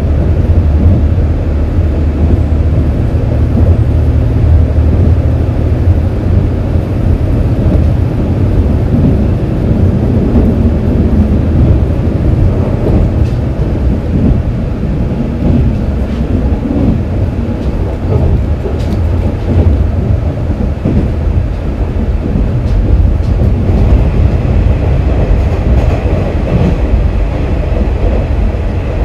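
KiHa 47 diesel railcar running between stations: a steady, loud low drone and rumble of its diesel engine and wheels on the rails.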